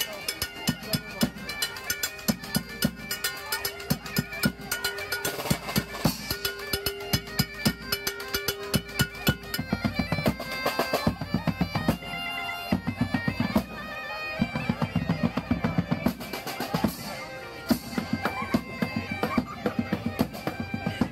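Bagpipe music with drums: a held drone note under the melody for about the first half, and a quick, steady drumbeat.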